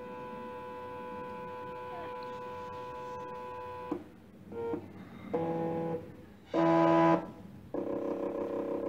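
NEMA 17 stepper motor (17HS4401) driven step by step from an Arduino, singing a steady pitched whine at its step rate for about four seconds. It then stops and runs in four short bursts at different pitches, the loudest and lowest-pitched just past the middle.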